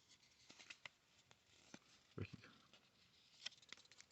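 Faint handling of baseball cards: scattered light clicks and rustles as cards are flipped and shuffled, with a soft thump a little after two seconds in.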